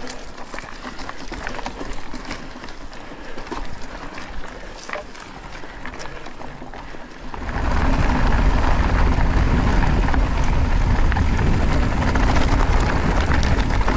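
Cannondale Scalpel Carbon 2 mountain bike ridden over a rough trail: the tyres crunch and the bike rattles, with many scattered clicks and knocks. About seven seconds in this turns into a loud, steady rush of wind and rolling noise.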